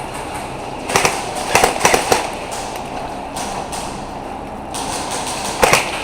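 Airsoft guns firing: scattered sharp pops, one about a second in, a quick cluster of four shortly after, and two more near the end, over a steady hiss of background noise.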